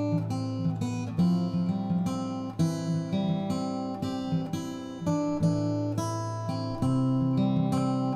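Background music on plucked acoustic guitar, notes picked in a steady flowing rhythm.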